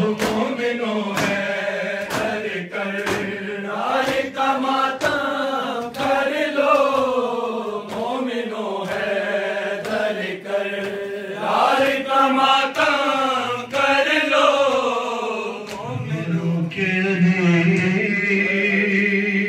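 Men chanting an Urdu noha lament through a microphone, led by one voice with a group joining in. Hand strikes of matam chest-beating keep time at about two a second. Near the end the singing settles into a long held note.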